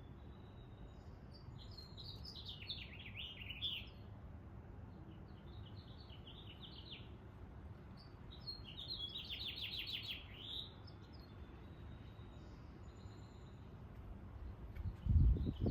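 A small songbird singing in three bouts of quick, high chirping notes, over a steady low rumble. Near the end comes a loud, low rumbling thump.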